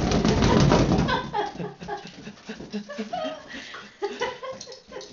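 Long-haired dachshund barking harshly and excitedly while playing with balloons, loudest in the first second.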